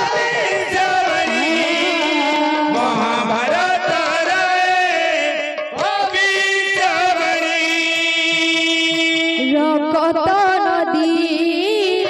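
Kirtan music: a long, wavering melody line of held notes with barrel drums beaten by hand underneath.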